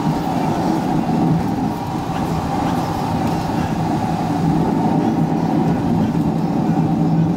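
Car engine and road noise heard from inside the cabin while driving a winding mountain road, a steady drone with a low hum. The footage runs at double speed, so the drone is pitched up.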